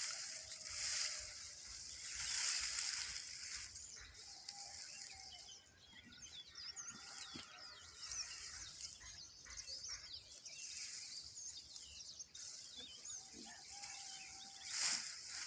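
Small birds chirping over a steady high hiss, with a few swells of rustling near the start, a couple of seconds in, and near the end.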